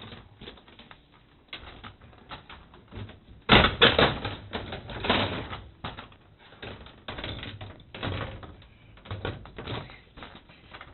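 Irregular clicking and clattering as a photocell's plastic cap is popped loose and slid back on its mounting bracket. The loudest burst of clatter comes about three and a half seconds in.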